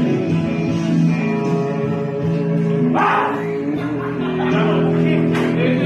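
Music with a plucked guitar and singing. A short burst of noise comes about halfway through.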